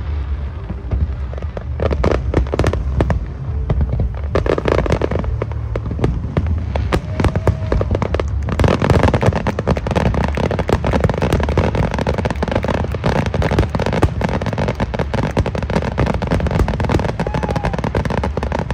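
Fireworks display: aerial shells bursting in a rapid, dense run of bangs and crackles over a continuous low rumble, growing denser about halfway through.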